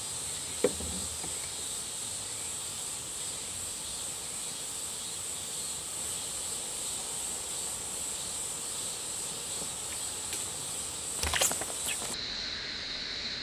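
Insects chirring steadily at a high pitch, with a single click about half a second in and a short run of clicks near the end. Just after that the chirring abruptly drops to a lower pitch.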